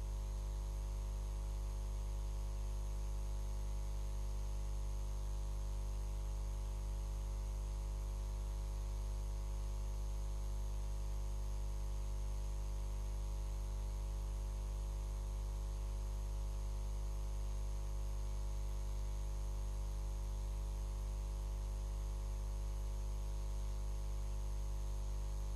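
Steady electrical hum with a buzzy row of overtones, plus a faint high-pitched whine and hiss, unchanging throughout; no other sound.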